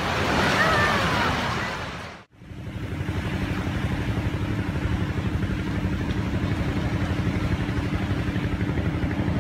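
Surf washing on a sandy beach for about two seconds. After a sudden cut, a small engine runs at a steady idle with a fast, even beat.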